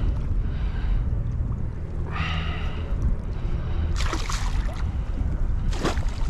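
A hooked barracuda thrashing at the surface beside a kayak, with two sharp splashes, about four seconds in and again near the end, over steady wind rumble on the microphone.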